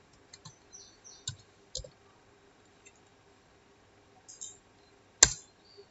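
Computer keyboard keys clicking a few at a time with pauses between, and one sharper, louder click a little after five seconds in.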